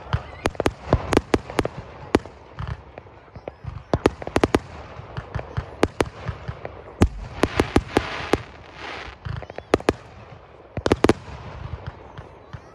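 Fireworks display: a rapid, irregular string of sharp bangs and pops as aerial shells and comets launch and burst, with a stretch of hissing about eight seconds in.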